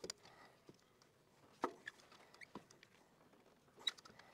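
Faint, irregular clicks, taps and light knocks of gloved hands working a new spin-on oil filter into place, the sharpest knock about a second and a half in.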